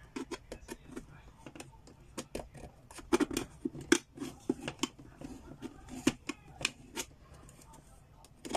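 Kitchen knife stabbing and prying into the metal lid of a tin can, cutting it open by hand: an irregular run of sharp metallic clicks and scrapes, several a second, loudest about three to four seconds in.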